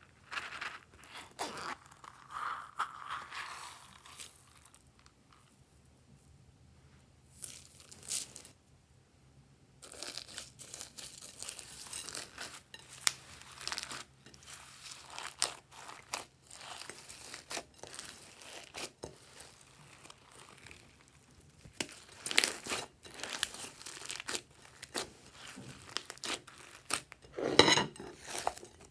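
Slime being squished and stretched by hand, crackling and popping as air pockets burst and the slime tears, in irregular bursts with short pauses between them.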